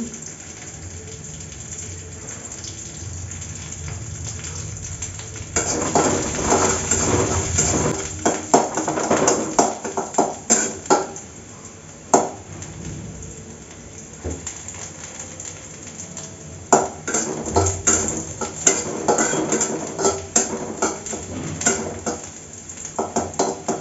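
Onion and dried red chillies sizzling in hot oil in a metal kadai. From about five seconds in, a spatula scrapes and knocks against the pan over the sizzle as the food is stirred and fried.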